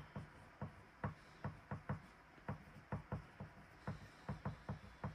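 Pen writing on paper on a tabletop: a run of short, irregular taps and strokes, about three a second.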